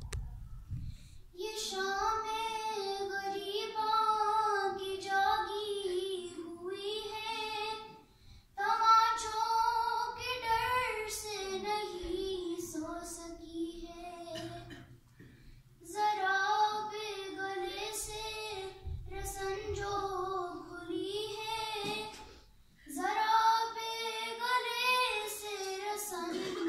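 A woman's voice chanting an Urdu salam unaccompanied: four long melodic phrases with a wavering pitch, each breaking off for a short breath.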